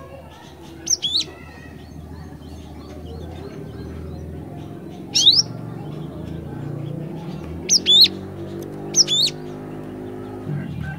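Cinereous tit (glatik batu) calling: about half a dozen short, sharp, high chirps that sweep in pitch, some single and some in quick pairs, spaced from under a second to a few seconds apart. A low hum runs underneath and grows louder in the second half.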